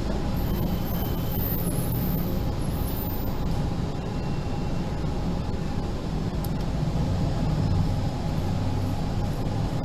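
Steady low background rumble with a faint constant hum running under it.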